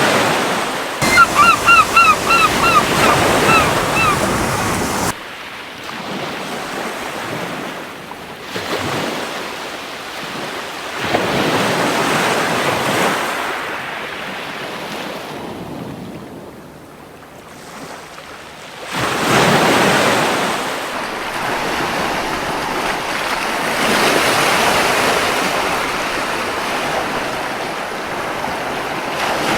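Ocean surf breaking on a beach in slow swells that rise and fall every several seconds. Near the start, a seagull gives a quick run of short, repeated calls lasting about three seconds.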